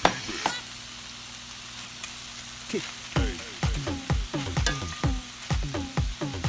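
Food sizzling in a hot frying pan, with a sharp knock at the start, as if a utensil hits the pan. From about three seconds in, an electronic dance beat with a steady kick drum plays over the sizzle.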